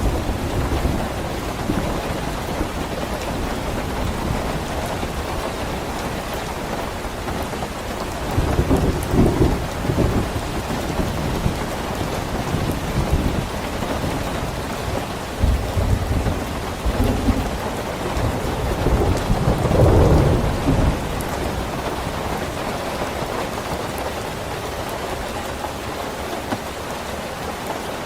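Steady rain falling, with low rolling thunder swelling up several times, the loudest rumble about twenty seconds in.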